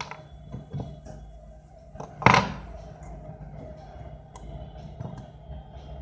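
Small clicks and clinks of a phone's charging-port board and tools being handled on a workbench, with one loud sharp clink a little over two seconds in, over a steady low hum.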